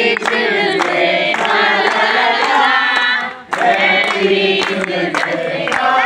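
A group of people singing together with hand clapping, the singing breaking off briefly about halfway through.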